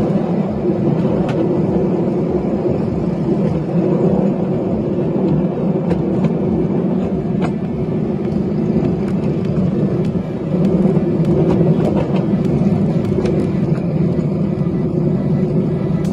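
10¼-inch gauge miniature railway train running along the track, heard from the wagon: a steady rumble of the wheels and running gear, with sharp clicks here and there as the wheels cross rail joints and points.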